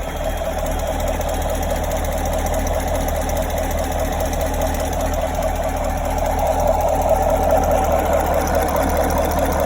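2017 Chevrolet Camaro's 6.2-litre V8 idling at operating temperature, with a fast, even ticking over the engine note, a little louder from about two-thirds of the way in. The tick only appears once the engine is warm at idle and seems to come from the rear driver's side, loudest from below near the oil filter and oil pump; the owner fears it may signal coming engine damage.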